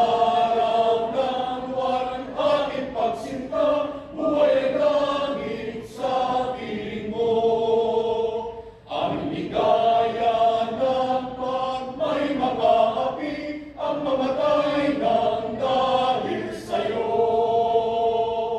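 Choir singing a slow song in long held notes, phrase after phrase with brief breaths between, stopping at the end.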